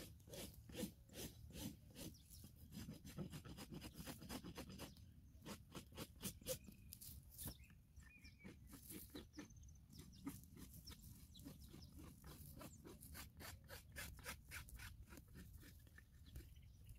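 Faint, quick crunching and scraping clicks of a hoof-trimming tool working a horse's hoof, in irregular runs with a short lull about five seconds in.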